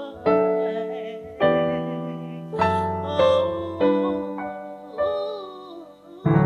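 Slow keyboard accompaniment: piano-like chords struck about once a second, each fading away, with a singer's voice holding wavering notes over them without clear words.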